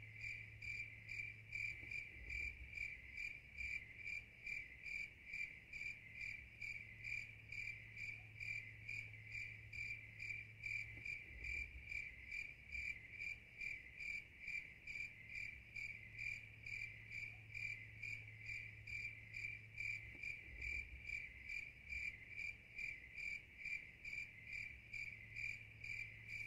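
A cricket chirping steadily, one high chirp repeating evenly about two to three times a second.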